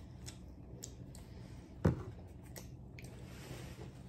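Close-up eating sounds: chewing and licking sauce off fingers, with scattered small mouth clicks and smacks. One sharper knock comes about two seconds in.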